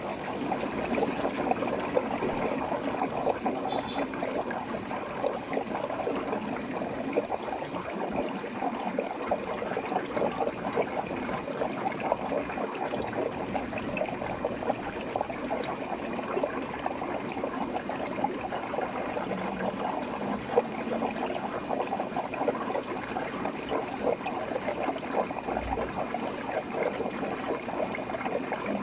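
Steady trickling and bubbling of aquarium water circulation, the continuous splash of a tank's filter or aeration.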